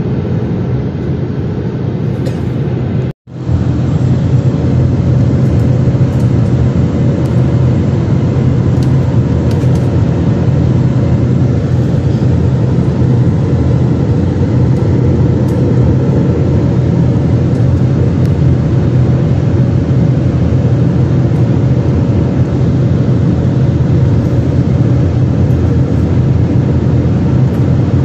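Steady cabin noise of a jet airliner in flight, heard by the window: a low engine drone and rushing airflow. The sound breaks off for a moment about three seconds in, then resumes slightly louder and holds steady.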